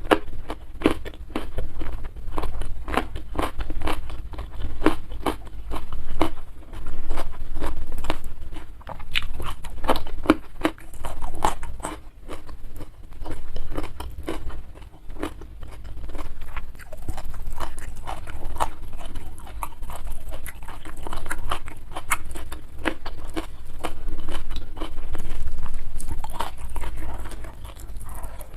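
Close-miked chewing and crunching of food, a dense run of small crunches and wet mouth clicks.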